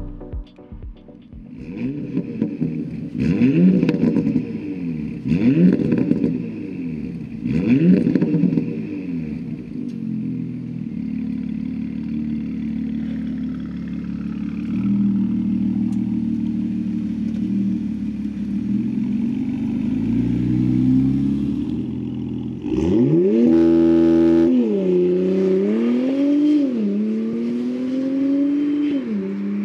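Porsche Macan turbocharged V6 through an AWE Tuning Touring cat-back exhaust: three quick throttle blips, each rising and falling in pitch, then a stretch of steady running. Near the end the engine pulls hard under acceleration, its pitch dropping at each upshift before climbing again.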